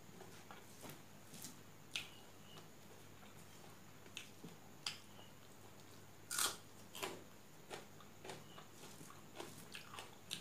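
Close-up eating sounds: fingers mixing rice on a steel plate, and chewing with wet mouth clicks and smacks. It is a scattered string of short, sharp clicks, the loudest a little past halfway.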